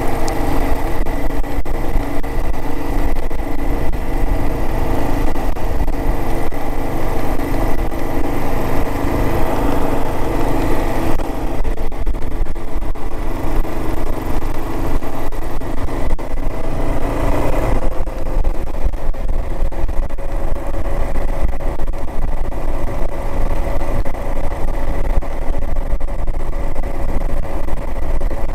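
Kawasaki KLR 650's single-cylinder engine running as the motorcycle is ridden, with wind noise over it. The wind noise drops about eleven seconds in, and the engine's pitch shifts about eighteen seconds in.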